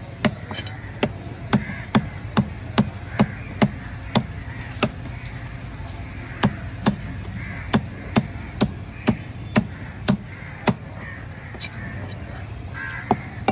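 Knife chopping through fish into a wooden log chopping block: sharp chops about two or three a second, in two runs with a pause of about a second and a half between them, then a single chop near the end.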